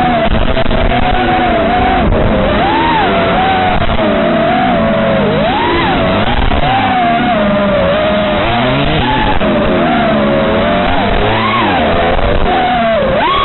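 FPV quadcopter's motors and propellers whining loudly, the pitch swooping up and down with throttle, as heard from the drone itself. A dirt bike engine revs and falls back underneath.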